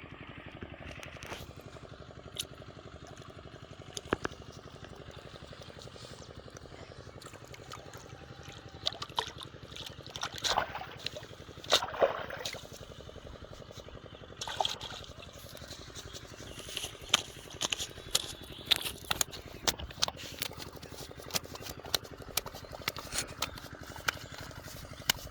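Water splashing and trickling, with scattered sharp knocks and clicks that come thicker after the first several seconds, over a steady background hiss.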